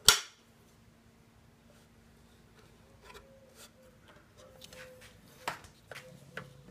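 A single sharp click as a toggle switch on a KBMD DC motor speed control is flipped, followed by a faint steady hum and a few lighter clicks and knocks from handling near the end.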